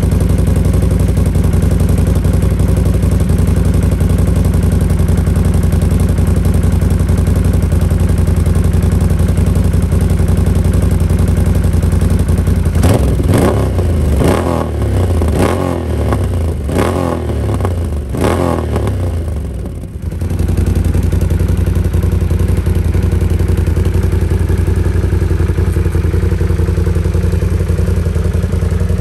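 Can-Am Renegade ATV's V-twin engine idling through a Big Gun EVO U Series exhaust. About halfway through it is blipped to around six quick revs, then settles back to a steady idle.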